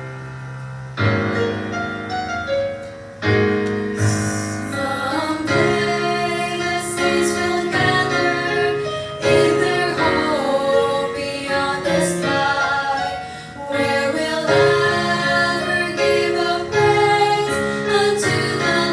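Vocal trio singing a gospel song in harmony over piano accompaniment, with long held, wavering notes.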